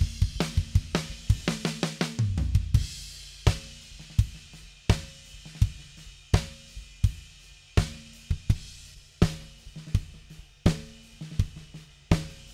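Recorded drum kit playing back (kick, snare, hi-hat and cymbals), with the kick and snare run through Lindell 50 Series channel-strip plugins. A busy run of hits in the first two seconds ends on a cymbal crash. After that comes a slower, sparse beat, with a heavy hit about every second and a half, getting busier again near the end.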